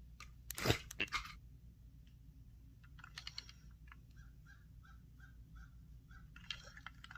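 Plastic toy trains being handled and set down on a bedspread: a few sharp clicks and knocks about a second in and again around three seconds in. Through the second half, a faint regular run of short high chirps, about two a second.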